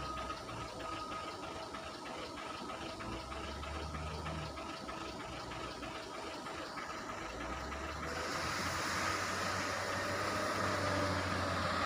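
Caterpillar 966 wheel loader's diesel engine running while the machine lowers its empty bucket and pulls back from a lorry after loading stone chips, with a steady whine throughout. The engine grows louder and hissier about eight seconds in.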